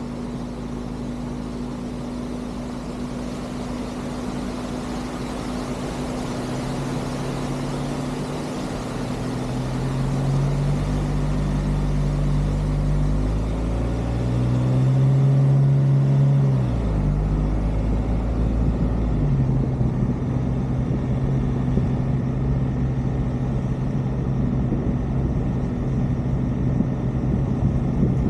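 A motor vehicle driving along a road: a steady engine drone over road noise, its pitch shifting as the engine speeds up and slows. It is loudest about halfway through.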